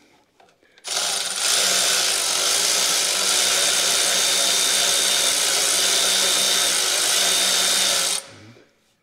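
Milwaukee cordless electric ratchet running steadily for about seven seconds, starting about a second in and stopping abruptly, spinning out a mounting bolt on the alternator and vacuum-pump bracket.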